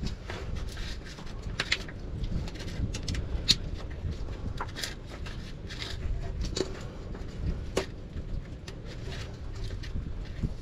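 Scattered clicks and rustling of plastic wiring-harness connectors and cables being handled and unclipped, the sharpest click about three and a half seconds in, over a low rumble of wind on the microphone.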